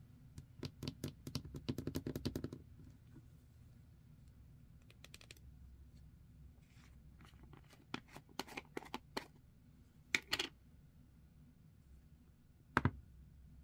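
Fingernails tapping quickly on the plastic lid of a slime tub, then scattered clicks and taps as the tub is handled and the lid comes off, with one sharp knock near the end.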